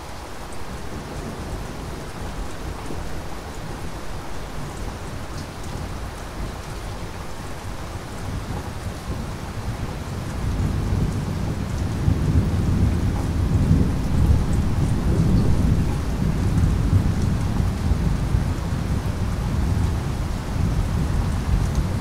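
Steady rain with thunder rumbling low. The rumble swells about halfway through, is loudest for several seconds, then eases a little while the rain keeps on.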